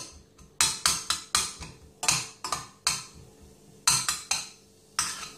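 A spatula knocking and scraping against a stainless steel saucepan while onion and garlic are stirred in hot oil: sharp clinking knocks in irregular clusters of two to four, with short pauses between.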